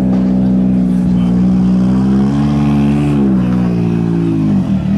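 Rally car engine running with a steady, loud low note, its pitch lifting a little about two seconds in and then falling steeply near the end as a car pulls past close by.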